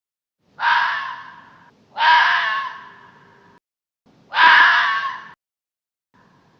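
Fox calling three times, each call starting loud and trailing off over about a second, with another call beginning at the very end.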